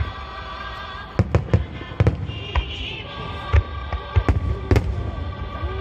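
Aerial firework shells bursting, a dozen or so sharp bangs in irregular clusters, with music playing underneath.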